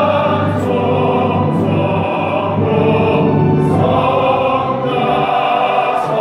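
Church congregation singing a hymn in long held notes over a steady instrumental accompaniment.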